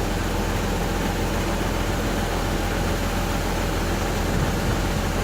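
Tractor engine running steadily while it powers the hydraulic rams tipping a grain trailer full of wheat.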